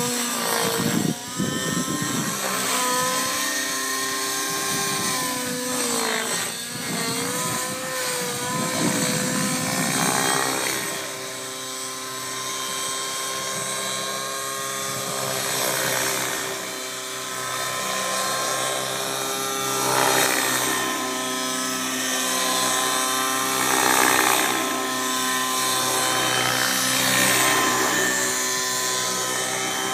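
Radio-controlled model helicopter flying aerobatics: a continuous high whine from its motor and rotors, the pitch dipping and rising sharply in the first ten seconds, then steadier, getting louder and softer as it passes.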